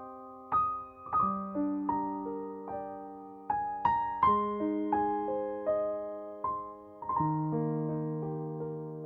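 Background piano music: a slow, gentle melody of single notes over held chords, each note struck and left to ring.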